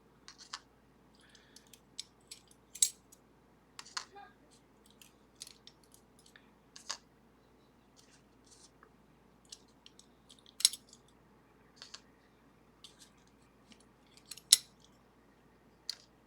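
Small steel lock levers and parts clicking and clinking as they are lifted out of a lever lock's renter-side pack and set down one by one, in scattered irregular taps with a few louder clinks.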